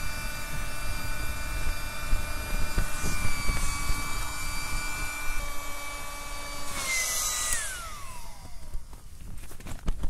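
A small electric motor whirring steadily, then switched off about seven seconds in with a brief hiss, its pitch falling as it winds down. Low wind rumble on the microphone throughout.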